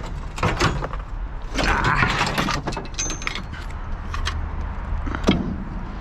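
Scrap metal pieces clinking and rattling as they are handled and pulled from a pile, with a sharper knock about five seconds in, over a steady low hum.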